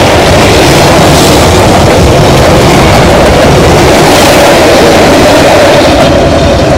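Vietnamese passenger train coaches rolling past close by: a loud, steady rush and rumble of wheels on the rails.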